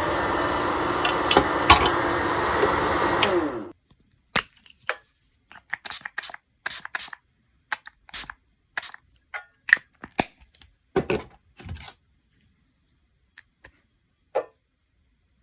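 Electric nail drill running steadily, then switched off about three and a half seconds in, its pitch falling as it winds down. Scattered light clicks and taps follow.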